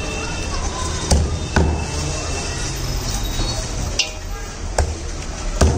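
A cleaver chopping raw chicken on a thick wooden chopping block: about five sharp, unevenly spaced strikes over a steady background hum.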